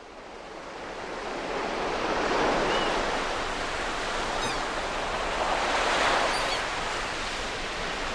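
Ocean surf: waves breaking and washing in, fading up at the start and swelling twice, about two and a half seconds in and again around six seconds.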